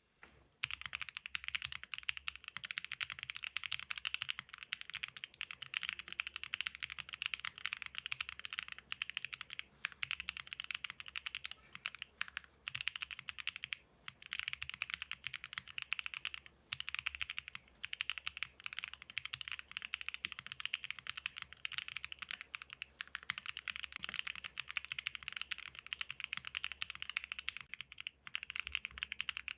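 Fast, continuous typing on a Choice65 gasket-mount mechanical keyboard with stock Rouge switches, a polycarbonate plate, Poron foam and EPBT PBT keycaps: a dense stream of key clacks with a few brief pauses.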